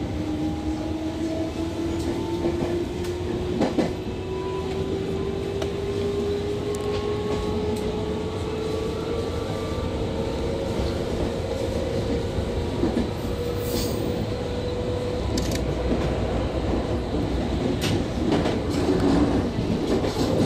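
221 series electric multiple unit accelerating away, heard from behind the driver's cab: its traction motors and gears give a whine that rises steadily in pitch as the train gathers speed. Near the end the wheels clatter over points.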